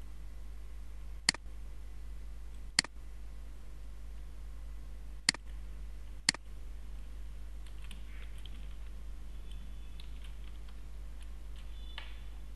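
Four sharp computer mouse clicks spread over the first six and a half seconds, then soft keyboard typing from about eight seconds in, over a steady low hum.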